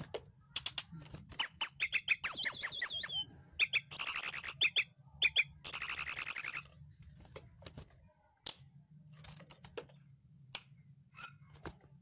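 Caged tledekan gunung (sulingan) singing. It gives a run of quick, wavering whistled notes, then two loud, fast trills about four and six seconds in, and after that only a few short chips.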